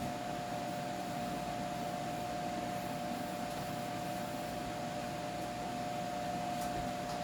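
A steady machine hum: an even hiss with a constant high, whining tone, unchanging throughout.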